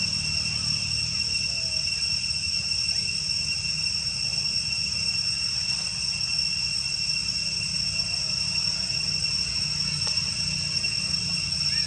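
Steady, high-pitched insect chorus droning without a break, over a constant low rumble.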